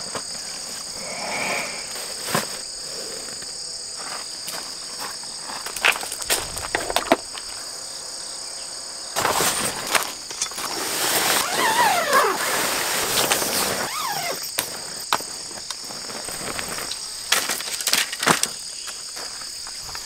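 Insects calling steadily in a high pitch, over scattered knocks and clacks of tent poles and the rustle of tent fabric as a tent is taken down. From about nine seconds in to about fourteen, the rustling and scraping grow louder.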